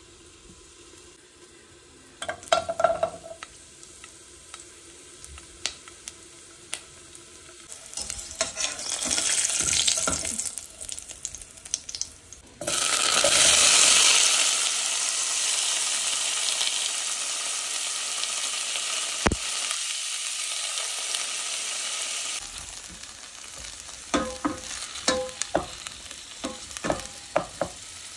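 Sliced garlic frying in olive oil in a stainless steel saucepan. A few clinks as the slices drop in, then a sizzle that builds and jumps suddenly louder about halfway through. The loud sizzle holds steady for several seconds, then drops back to lighter sizzling with a run of sharp clinks of stirring near the end.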